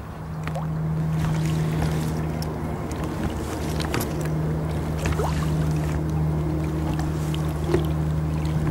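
Small boat's outboard motor running at a steady cruising speed, a constant low drone, heard from aboard the moving boat.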